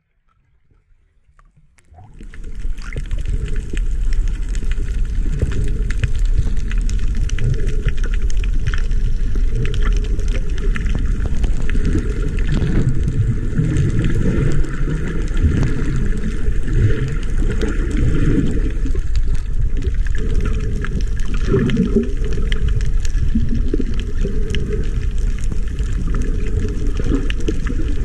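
Muffled underwater rushing and gurgling picked up by a camera in a waterproof housing as a snorkeler swims. It starts about two seconds in and stays loud and steady.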